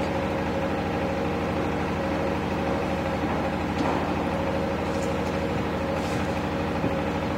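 Steady, unchanging hum of an idling engine, with a few faint light clicks.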